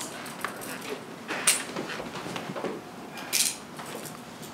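Metal handcuffs ratcheting shut on a person's wrists: a few short metallic clicks, with two louder ratcheting bursts about a second and a half in and about three and a half seconds in.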